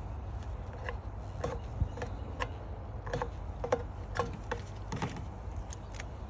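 Irregular sharp clicks and taps, about a dozen, from prying open a package of honey bees.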